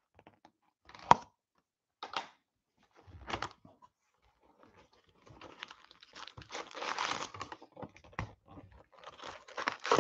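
A cardboard trading-card box being unwrapped and opened by hand, with one sharp click about a second in, then foil card packs crinkling as they are pulled out of the box.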